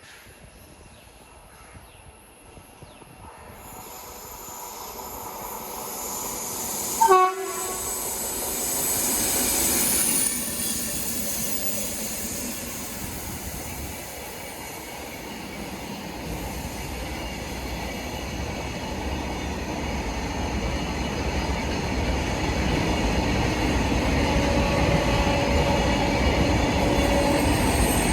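Indian Railways train approaching, its rumble building steadily louder. A short, loud horn blast comes about seven seconds in.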